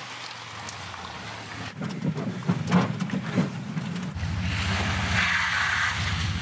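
A small hatchback driving hard across a wet gravel lot and up an embankment, its engine under load and its tyres splashing through puddles. About four seconds in, a steadier low engine drone sets in.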